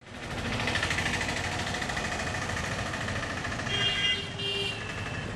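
Street ambience: steady traffic noise with vehicle engines running, and two short high tones about four seconds in.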